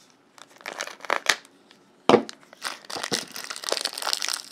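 Foil-wrapped Magic: The Gathering booster packs crinkling as hands handle them and lift them out of their box: scattered crackles at first, a sharp crackle about two seconds in, then steady crinkling.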